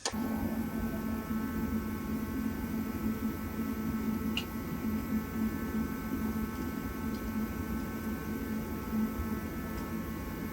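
A heater running with a steady electrical hum and fan noise, starting suddenly as it is switched on.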